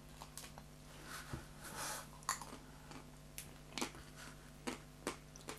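Faint sounds of biting and chewing a chocolate-coated ice cream bar: a scatter of short sharp clicks and crackles, with a brief soft hiss in the first half.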